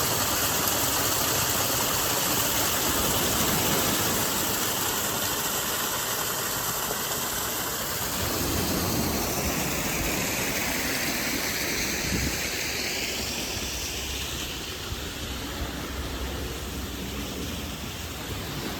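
Small freshwater runoff waterfall pouring and splashing into the sea, a steady rush of water that eases off a little after about fourteen seconds.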